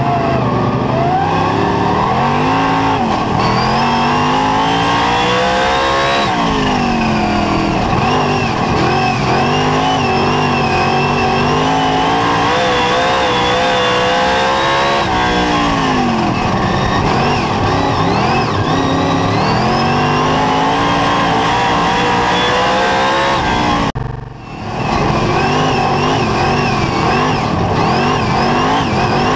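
Superstock race car's V8 engine heard from inside the cockpit, revs climbing and then dropping back several times as it laps. The sound dips briefly about 24 seconds in.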